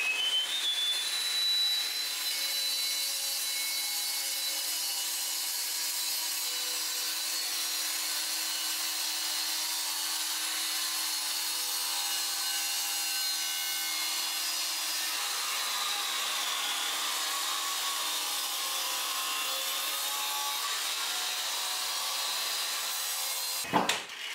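Makita 9-inch angle grinder, in a dust-extraction cutting guard, cutting along the grout line of a tile floor. It runs with a steady high whine over a grinding noise, then winds down near the end.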